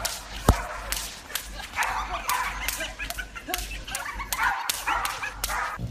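A dog yipping and whimpering in short repeated calls, over sharp clicks or knocks scattered throughout.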